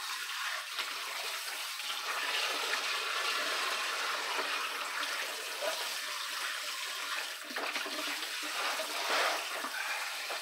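Kitchen faucet spray running steadily into a stainless steel sink, splashing over raw chicken pieces being rinsed by hand.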